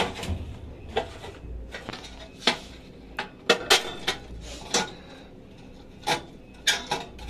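Irregular sharp metal clanks and knocks, about ten of them, with some rubbing in between, as a finned tubular heating element is worked out through the sheet-metal heater chamber of a reflow oven.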